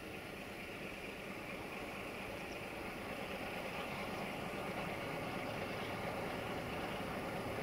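Electroputere 060-DA (ST43) diesel-electric locomotive's Sulzer engine running as it approaches with a freight train, growing steadily louder.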